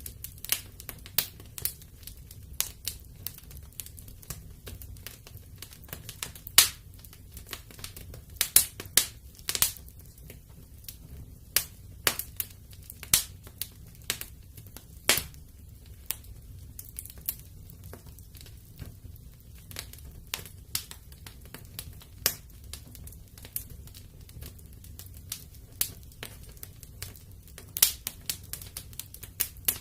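Wood fire crackling in a fireplace: irregular sharp pops and snaps, a few louder than the rest, over a low steady rumble.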